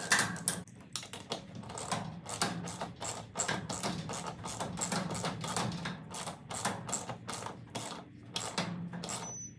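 Quick, uneven metallic clicking, about four clicks a second, from a hand tool fastening the screws of a garage door opener's rail bracket on the wall header.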